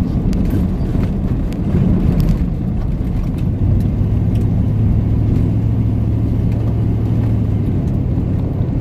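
Pickup truck driving on a dirt road, heard from inside the cab: steady engine and tyre rumble. A steady low drone comes in about three and a half seconds in and drops out shortly before the end.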